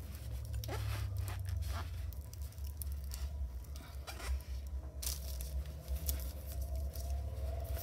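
Microfiber cloth rubbing and wiping a cast hydrostone piece, a string of irregular short scuffs and rustles, over a low steady hum.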